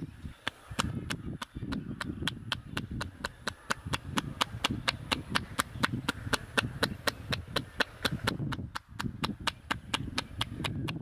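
Rapid rhythmic percussive strokes of a head massage: hands striking the head in quick succession, about four to five sharp claps a second, at an even pace.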